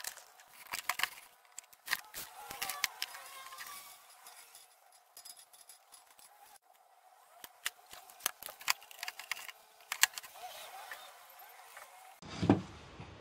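Scattered light clicks and taps of a plywood cabinet and its hinged lid being handled, with a louder knock near the end.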